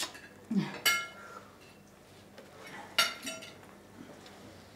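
Cutlery clinking against plates and dishes during a meal: a few sharp clinks, the loudest just under a second in and about three seconds in, each ringing briefly.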